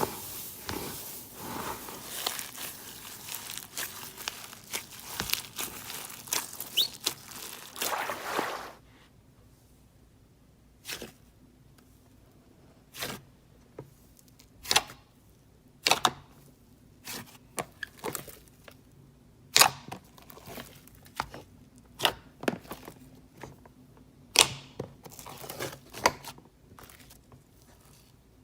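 A big batch of slime being worked by hand: dense crackling and tearing for about the first nine seconds, then scattered sharp clicks and pops.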